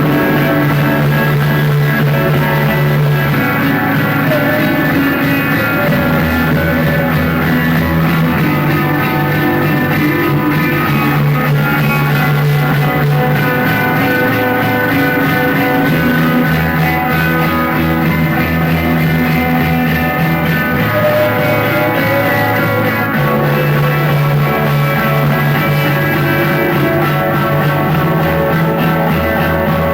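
Loud rock music: sustained electric guitar over a bass line that changes note every few seconds.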